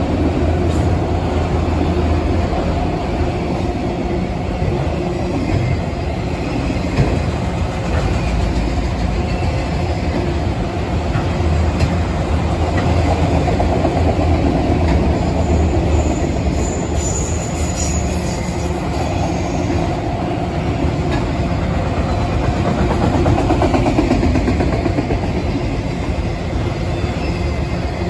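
Freight train of autorack cars rolling past at speed: a steady rumble and clatter of steel wheels on the rails. About two-thirds of the way through, a brief high squeal from the wheels rises over the rumble.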